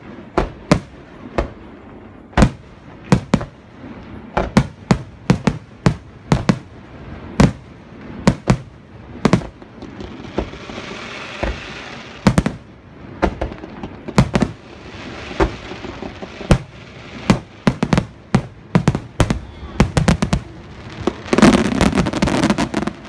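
Fireworks going off in an irregular string of loud sharp bangs, about one or two a second, with stretches of crackling between them and a dense volley of bangs near the end.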